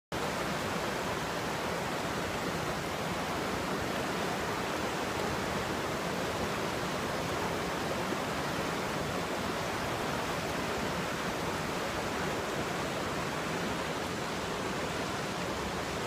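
Whitewater rapids of the McCloud River rushing over rocks: a steady, even rush of water with no change throughout.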